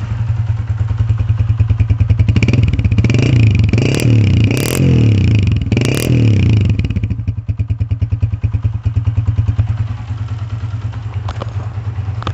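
Honda CG125's single-cylinder four-stroke engine, just rebuilt with a new piston and rings, running: the throttle is blipped several times in the first half, the revs rising and falling, then it settles back to a steady idle. The mechanic hears it as sounding like a brand-new engine.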